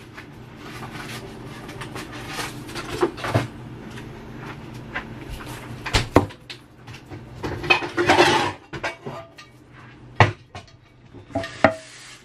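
Kitchen handling sounds: scattered knocks and clinks of doors, dishes and utensils, with a longer rustling scrape about eight seconds in, over a low steady hum.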